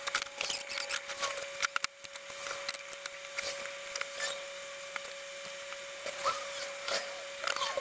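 Flattened lengths of old fire hose being handled and laid out on a plywood sheet: scattered rubbing, light slaps and small knocks of fabric hose on wood. A faint steady hum runs underneath.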